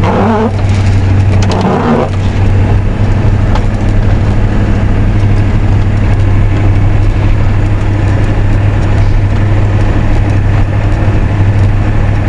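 1990 Ford F250's 7.3L IDI V8 diesel engine running steadily as the truck drives through snow in four-wheel drive, with a run of clicks and crunches about a second in.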